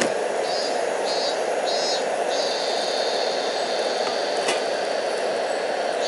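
French toast frying in butter in a nonstick pan over a portable cassette-gas burner: a steady sizzle and flame hiss, with a higher sizzle coming and going. There is a single small click about four and a half seconds in.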